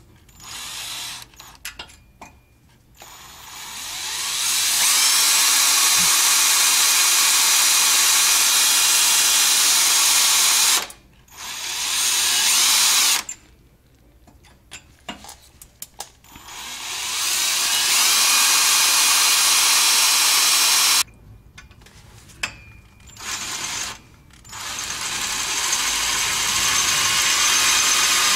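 Cordless drill boring into the head of a rusted, seized steel bolt on an exhaust band clamp, to weaken the bolt so the clamp can be pried off. It runs in long pushes of several seconds, building up at the start of each, with short trigger blips and brief pauses between them.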